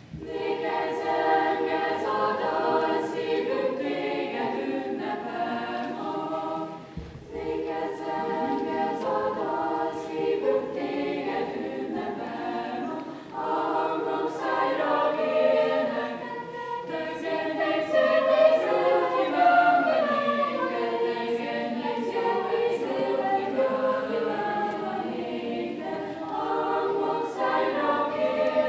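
A school chamber choir singing unaccompanied in several voice parts, with short breaks between phrases about seven and thirteen seconds in.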